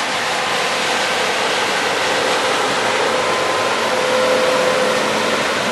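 Loaded Volvo semi truck, about 81,000 pounds, driving slowly through a soft muddy field, its diesel engine pulling steadily under load as it passes close by. Its tires, let down to 30 PSI, roll through the dirt and stubble.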